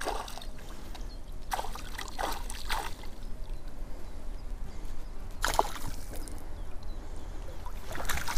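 A hooked pike thrashing at the water's surface as it is reeled in to the bank: several separate splashes, the last near the end as it is drawn out onto the bank.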